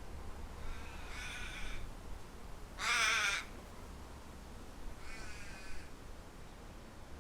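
A bird, crow-like, calling three times in drawn-out wavering calls, the middle one shortest and loudest, over a low steady rumble of wind.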